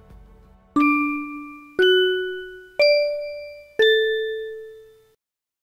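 A short four-note chime jingle: bell-like notes struck about a second apart, each ringing and fading. The pitch climbs over the first three notes and drops back a little on the fourth, which fades away near the end.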